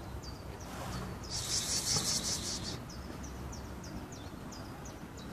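Outdoor ambience with short high chirps repeating two or three times a second, and a brief hiss from about one to three seconds in.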